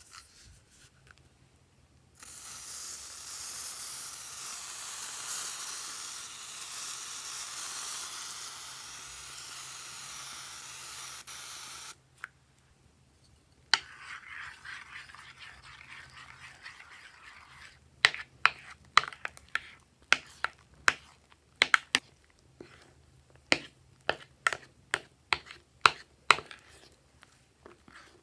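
Figaro shaving foam aerosol can spraying with a steady hiss for about ten seconds. After that come the soft crackle of hands pressing into the foam and a run of sharp wet squelches and pops as fingers mix the foam into the paint.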